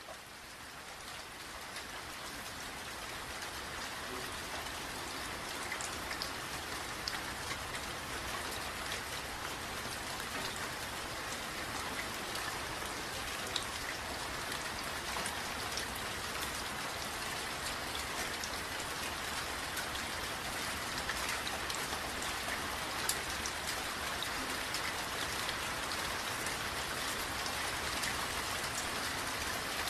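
Steady rain falling, with many individual drops ticking sharply through the hiss. It fades in over the first few seconds, then holds even.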